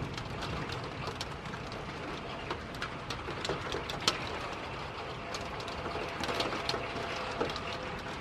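Steady rainfall with scattered drops ticking sharply on nearby surfaces.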